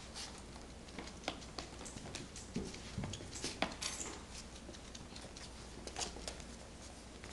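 Puppies moving about on a hardwood floor and nosing a cardboard toy box: scattered light clicks, taps and rustles, with a few sharper ticks.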